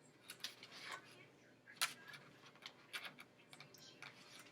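Faint, irregular clicks and taps from takeout food containers and food being handled, with one sharper click about two seconds in.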